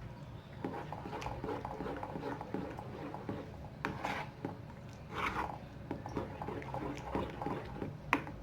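A spoon stirring and scraping spiced masala in a cooking pan: irregular small clicks and scrapes, with a few sharper clinks, the loudest near the end.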